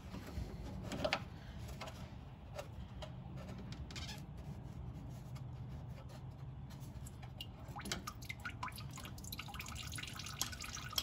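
Engine coolant draining from an opened radiator petcock drain valve, falling into a bucket below as irregular drips and a thin trickle.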